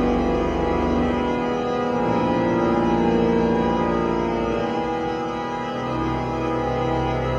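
Hauptwerk virtual pipe organ, sampled pipe sounds played through loudspeakers, sounding sustained full chords. A deep pedal bass drops out a little over a second in and comes back near the end.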